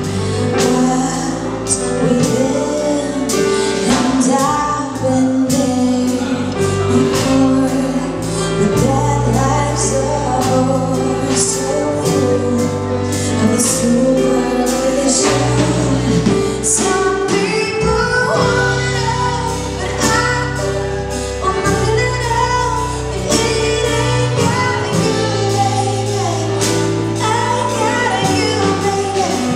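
A song with a woman's singing voice over a steady beat and sustained bass notes.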